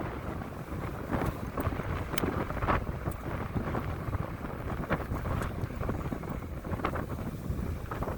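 Wind buffeting the microphone while riding a fat-tire e-bike along a rough dirt road, with tyre noise and scattered knocks and rattles from the bike over bumps.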